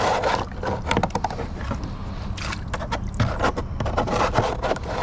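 Rainwater being bailed by hand out of a small boat's motor well with a cut-off plastic bottle: irregular scoops and splashes of water, with the plastic knocking against the hull.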